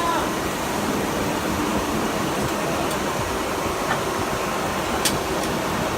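Steady machinery noise, an even whooshing hum, with one sharp click about five seconds in.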